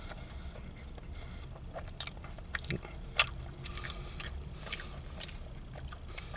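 A person chewing and biting into a sandwich close to the microphone, with irregular crisp crunches and wet mouth clicks from the bread, lettuce and bacon.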